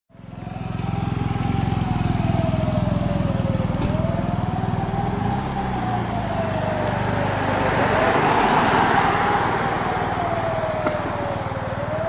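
Alarm siren wailing, each rise quick and each fall slow, about every four seconds: the siren alarm calling out the volunteer fire brigade. A low engine rumble runs beneath it and fades out about two-thirds through.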